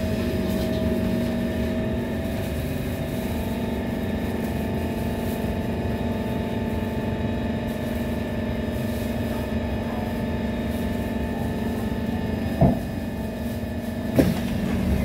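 Steady hum and whine inside a C151 train carriage standing at a platform, from its electrical and air-conditioning equipment. Two short sharp clunks come near the end, shortly before the doors open.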